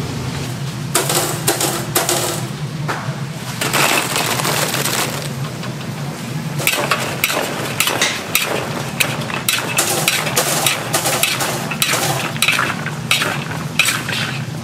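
Metal spatula and fork scraping and clanking against a cast-iron cauldron as fried chicken is stirred and tossed in sauce, in quick irregular strokes from about a second in, over a steady low hum.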